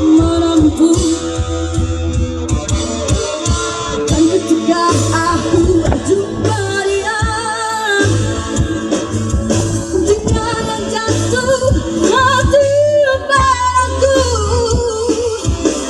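Pop song: a singer holding wavering notes over a steady bass line and drum beat.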